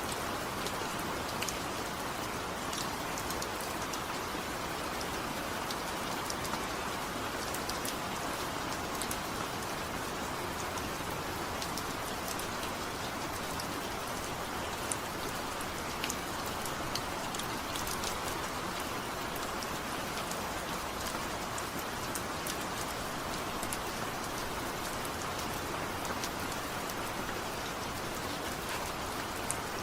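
Heavy rain falling steadily without thunder, a constant hiss with scattered sharp drips and patters on a surface.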